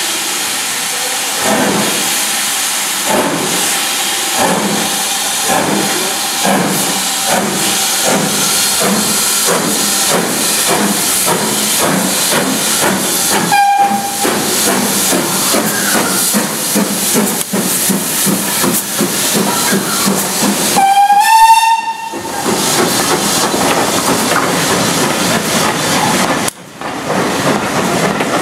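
BR Standard Class 4 tank locomotive 80080 pulling away with a train, its exhaust beats steady and picking up pace amid hissing steam. A steam whistle gives a short blast about 14 s in and a longer, louder blast about 21 s in, after which the coaches run past.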